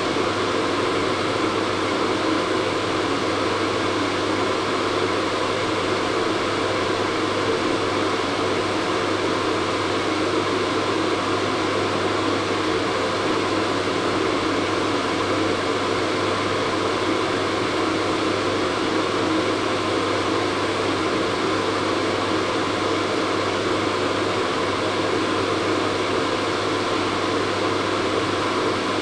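Hair dryer running continuously: a steady rushing of air with a low motor hum, unchanging throughout.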